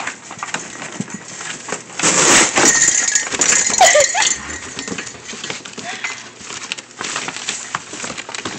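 Puppies moving in a cardboard box: scratching and rustling on the cardboard, loudest for a couple of seconds in the middle, with a short puppy whimper about four seconds in.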